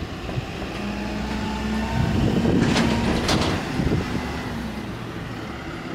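Diesel engine of a bulk-trash claw (grapple) truck idling, a steady low rumble with a steady hum over it for the first half. Two short sharp noises come about three seconds in.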